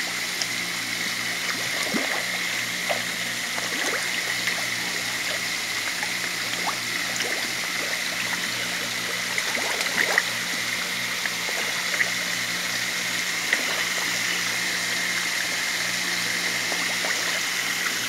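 Water running steadily into a tilapia tank, with scattered small splashes and pops as the tilapia snap floating feed pellets off the surface, over a low steady hum.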